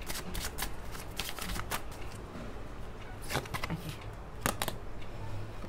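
Tarot cards being shuffled by hand: a dense run of quick papery flicks and snaps for about two seconds, then a few shorter clusters of flicks.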